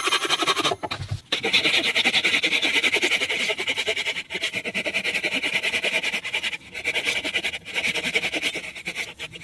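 Folding Japanese-style pull saws cutting dry dead wood, played at double speed: a fast, continuous rasping of saw strokes. It breaks off briefly about a second in and a few times later.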